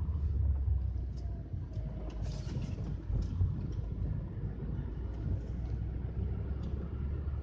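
Car driving on a mountain road: a steady low rumble of engine and tyres, with a few faint ticks over it.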